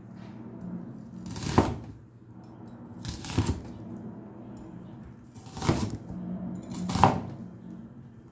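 Papery skin being peeled off an onion by hand: four short, dry tearing crackles, each swelling to a sharp peak.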